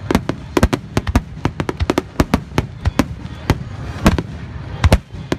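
Aerial fireworks display going off in a dense barrage: shells bursting in quick, irregular succession, several bangs a second, over a steady low rumble, with the loudest bang about four seconds in.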